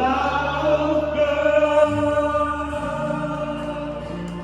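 A live band's backing with a voice holding a long final sung note of a Mandarin pop song, the music easing down toward the end.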